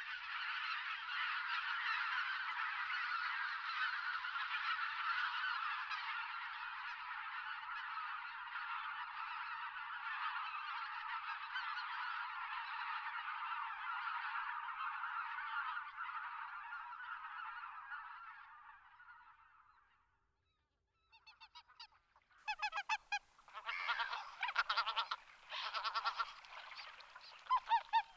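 A large flock of wild geese calling together in a dense, continuous chorus, which fades out after about twenty seconds. After a brief gap, nearer geese give separate calls in short clusters.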